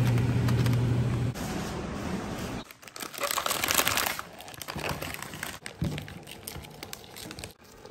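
A steady low hum at the start, then plastic packaging crinkling and rustling as hands tear open and empty packets of frozen hotpot fish balls onto a plate. The crinkling is loudest about three to four seconds in and comes in smaller bursts after that.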